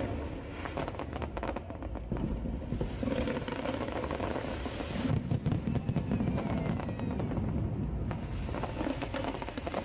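Aerial fireworks bursting in quick succession, a dense run of bangs and crackles over a low rumble, with music playing underneath.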